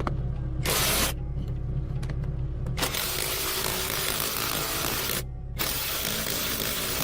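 Workshop machine noise: a steady low hum with a short hiss about a second in, then long stretches of loud hissing from about three seconds on, broken once briefly.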